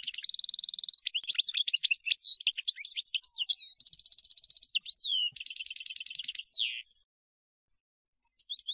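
European goldfinch singing: a fast, twittering run of high chirps and rapid trills that breaks off about seven seconds in, then starts again just before the end.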